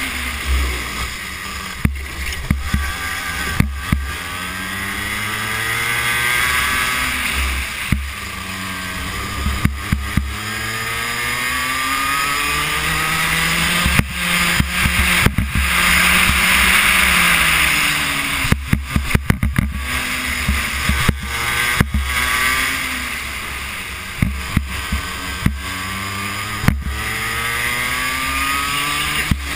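Racing kart engine heard from onboard at speed, its pitch rising and falling again and again as the revs climb along the straights and drop into the corners. Wind noise on the microphone and frequent sharp knocks and rattles from the kart running over the track and kerbs go with it.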